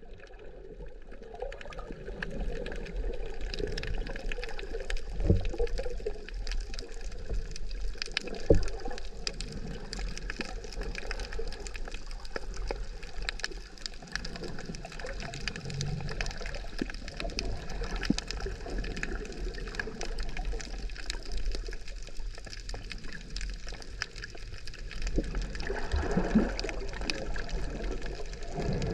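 Underwater sound from a submerged action camera: a muffled wash of moving water with constant fine crackling and clicking. Two dull knocks stand out, about five and eight seconds in, the second the loudest.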